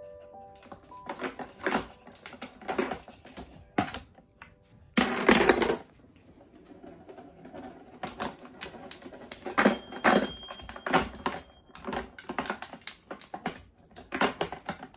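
Irregular plastic clicking and clattering from a toddler's plastic ball-drop tower and its plastic balls as a dog noses and shoves it, with a louder rushing burst about five seconds in.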